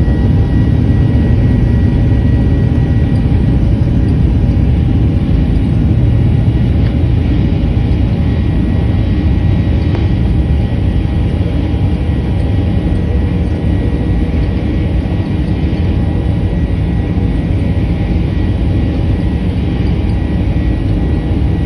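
Boeing 737-800's CFM56-7B turbofan engines running at takeoff thrust: a loud, steady rumble with a faint high tone above it.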